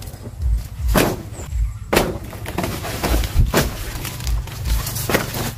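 Banana plant leaves being pulled and torn from the stalk: rustling with several sharp ripping cracks about a second apart, and dull low bumps in between.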